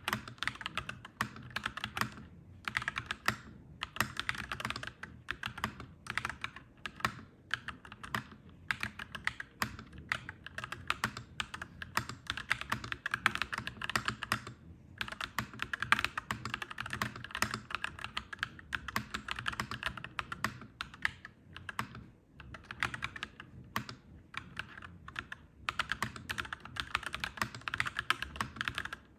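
Clacky mechanical keyboard being typed on quickly, in long runs of keystrokes broken by brief pauses.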